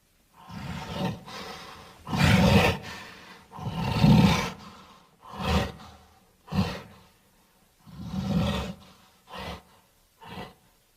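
Caveman sound effect: a deep voice roaring and grunting in a string of separate bursts, the later ones shorter and quieter.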